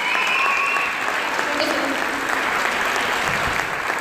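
Audience applauding steadily, with a brief high steady tone over it in the first second.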